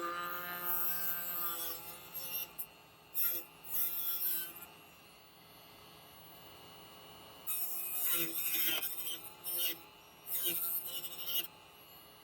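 Dremel rotary tool with a cutting blade whining at high speed and cutting into a plexiglass sheet in several short passes, with a gritty rasp each time the blade bites and quieter pauses between cuts.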